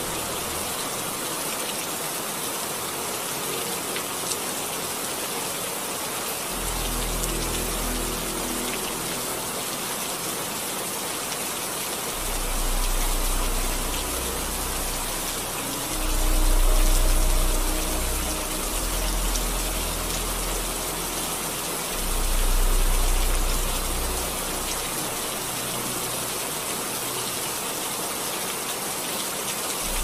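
Steady rain hissing, with deep low rumbles that swell and fade a few times, loudest about halfway through.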